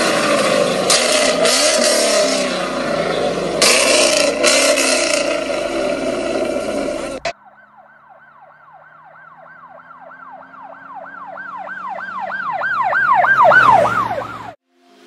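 A Ford Mustang revved hard with loud exhaust pops and bangs as flames shoot from its tailpipes, cutting off suddenly about seven seconds in. Then an emergency siren wails up and down, its cycles quickening and getting louder before it stops near the end.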